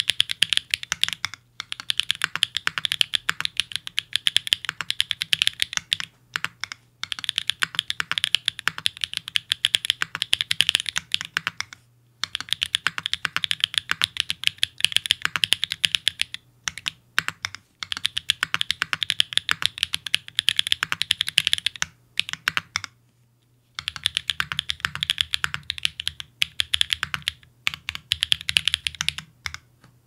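Typing on an F1-8X mechanical keyboard with Everglide Dark Jade Black switches, an aluminium plate and GMK Rudy keycaps, the board resting on a stack of six to nine desk mats. The keystrokes come rapidly in bursts separated by short pauses.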